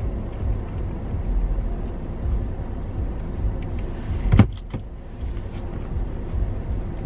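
Low, steady car rumble heard from inside the cabin, with a single sharp knock about four and a half seconds in.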